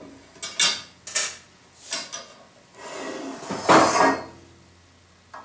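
Aluminum extrusion table saw fence and its T-square head being handled and set onto the saw's rail: three short metallic clacks in the first two seconds, then a longer, louder scraping clank just before four seconds in.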